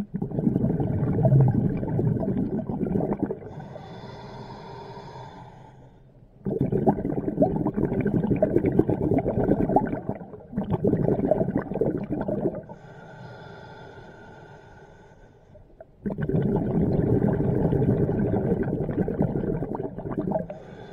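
Scuba diver breathing through a regulator underwater: three long exhalations of loud bubbling, each followed by a quieter hissing inhale.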